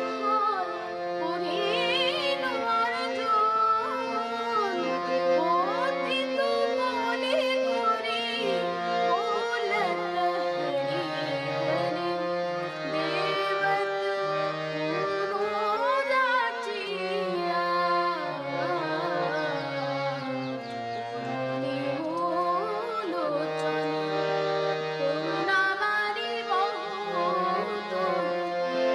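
A boy singing a Bengali kirtan to his own harmonium. His voice glides through ornamented phrases over sustained harmonium notes that move in steps.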